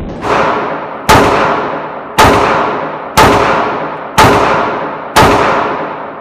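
Sig Sauer SP2022 9mm pistol firing six shots about a second apart, each sharp crack trailing off in a long echo.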